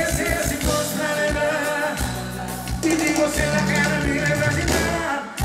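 Sertanejo duo singing live with their band: a male voice holding long notes over drums.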